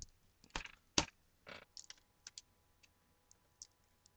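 Small plastic clicks and taps as the display cable's connector is handled and pushed into the back of a replacement laptop LCD panel. There are a few sharper clicks in the first second, then lighter scattered ticks.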